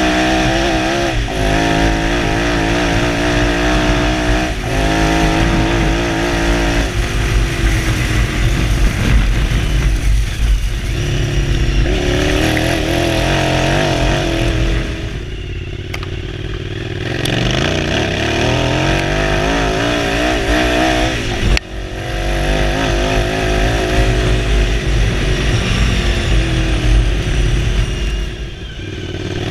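Suzuki SV1000 V-twin motorcycle engine powering an off-road buggy, revving hard and climbing in pitch through gear after gear. It eases off briefly about halfway and again near the end, then pulls again, with one abrupt cut in between.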